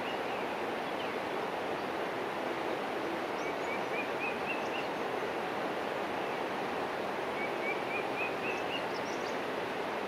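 A bird sings a short phrase of rising chirps that speed up, repeating it about every four seconds, over a steady rushing outdoor background.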